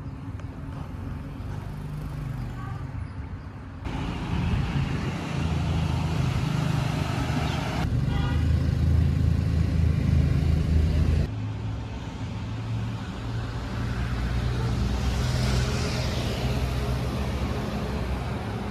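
A vehicle engine runs with a low, steady hum, heard in a few short segments that change abruptly about 4, 8 and 11 seconds in.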